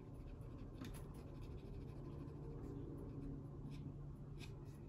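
Soft pastel stick scratching and rubbing on sanded pastel paper in a few faint short strokes, over a low steady hum.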